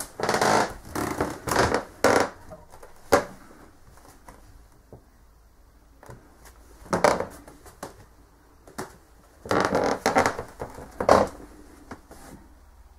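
Irregular rustling and knocking noises from a handheld camera being moved and handled in a small wooden room. They come in two clusters of short bursts, one in the first three seconds and another from about seven to eleven seconds in.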